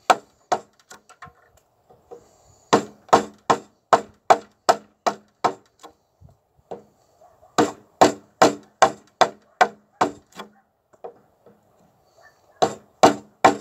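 Mallet striking a wood chisel, cutting a joint notch into a timber beam. Sharp wooden knocks come about three a second in runs, with brief pauses between them.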